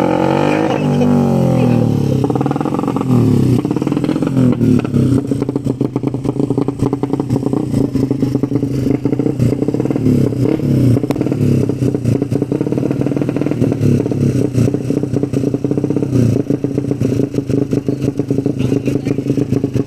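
Ported Suzuki Satria FU race motorcycle engine revved up and down a few times, then settling into a steady, fast-pulsing run.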